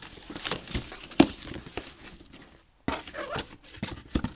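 Cardboard shipping box being handled and opened by hand: flaps rubbing and knocking, with a sharper knock about a second in and denser rustling from about three seconds in.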